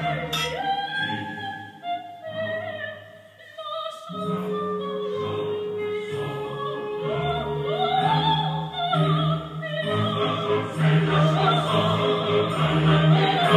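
Operatic classical music with orchestra and a singing voice, including one long held note in the middle.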